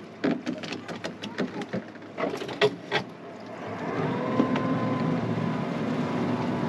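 A quick run of sharp clicks and knocks, then a steady mechanical whine from a small motor that starts about four seconds in and holds for nearly three seconds.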